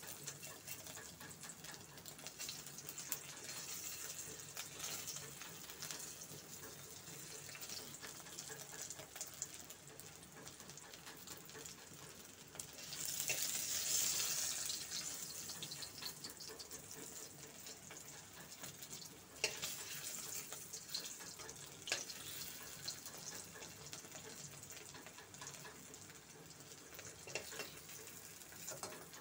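Whole boiled eggs frying in hot oil in a kadai: a steady sizzle with fine crackling that swells louder for a couple of seconds about halfway through as the eggs are turned. A few sharp clicks of a steel spoon against the pan come in the second half.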